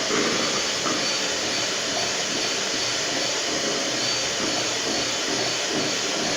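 Electric mixer running steadily, a constant motor whir as its beaters churn cake batter.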